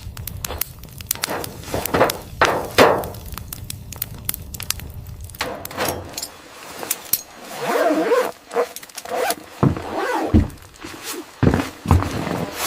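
Irregular knocks, thuds and scrapes, with a wavering creak-like scraping about two-thirds of the way through.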